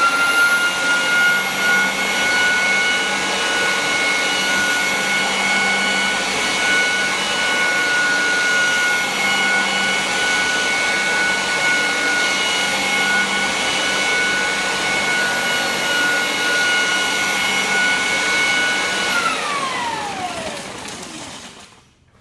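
Hiretech HTF-2 orbital floor sander running without its add-on weight: a steady motor whine over a loud hiss. About 19 seconds in it is switched off, and the whine falls in pitch as it winds down to a stop near the end.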